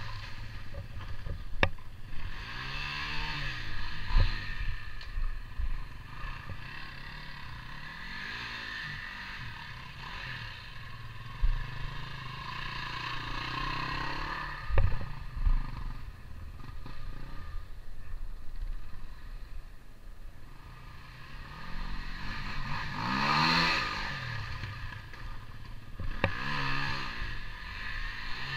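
KTM 250 EXC enduro bike's engine revving up and falling away again and again as it wheelies and circles, the rear tyre spinning in mud. A few sharp knocks stand out, the loudest about four seconds in and near the middle.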